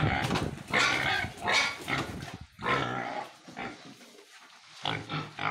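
Domestic pigs grunting: a run of rough grunts, then a lull of about a second before one more grunt near the end.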